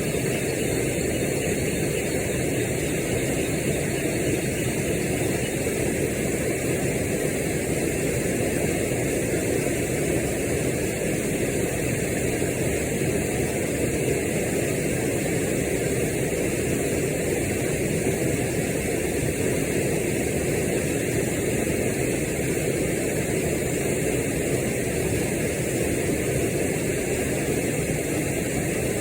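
Steady roar of rushing water pouring down a waterfall and rock water slide, even and unbroken throughout.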